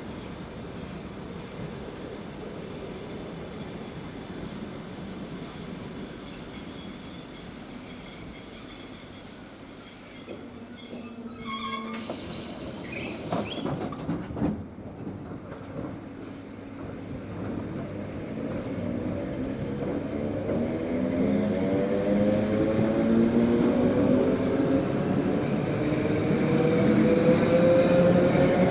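ED9M electric multiple unit at a station: first a thin, steady high-pitched squeal as it comes in, then a loud rushing burst about twelve seconds in. In the second half it pulls away, its traction motors' hum rising steadily in pitch and growing louder as it gathers speed past the platform.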